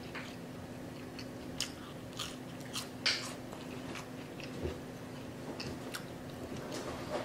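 A person chewing a mouthful of crispy fried catfish and soft bun, with scattered crisp crunches and wet mouth clicks, the sharpest about three seconds in.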